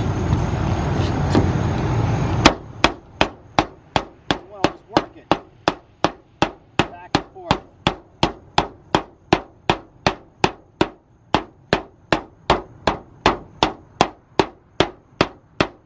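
A white-headed hammer striking along the standing seam of a 26-gauge Galvalume roof panel, even sharp metallic blows about three a second, folding the seam down flat. The first couple of seconds are loud steady rumbling noise that stops abruptly just before the blows begin.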